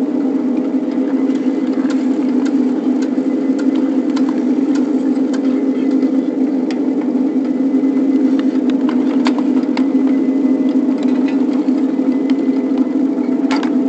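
Ride-on 7½-inch-gauge backyard railroad locomotive running along the track: a loud, steady drone with scattered light clicks.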